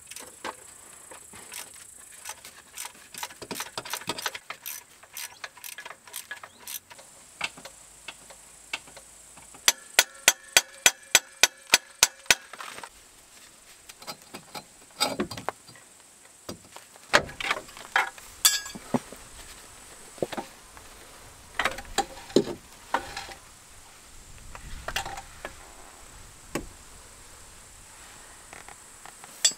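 Hand ratchet wrench clicking as the half-axle retainer bolts are undone, with a quick even run of clicks about ten seconds in. Metal clinks and knocks follow as the CV-jointed half axle is worked free.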